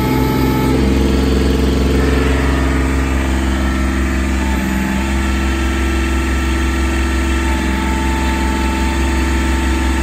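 Kubota B26 tractor's three-cylinder diesel engine running steadily, its note shifting slightly a few times as the backhoe hydraulics are worked.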